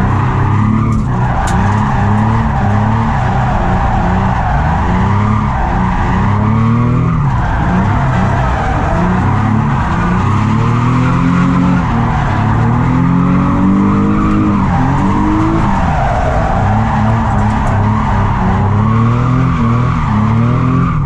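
Nissan 350Z drift car at full throttle through a drift run, the engine's pitch rising and falling over and over with the throttle and gear changes, over continuous tyre squeal from the sliding rear tyres.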